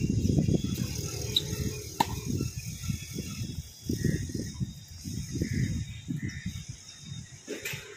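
Tennis racket strikes on a ball, one sharp crack about two seconds in and another near the end, over a low, uneven rumble of wind on the microphone.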